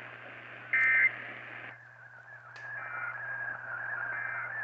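NOAA Weather Radio end-of-message data burst: a short, loud, buzzy digital warble about a second in, the last of three, over radio hiss. The hiss cuts off soon after, leaving a faint wavering high tone.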